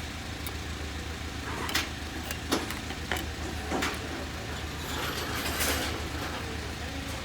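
Light clicks and scrapes of small parts being handled, likely the core of a small LED-driver transformer being fitted into its rewound coil, over a steady low hum. There are about four short clicks in the first four seconds, then a longer scratchy scrape a little after five seconds.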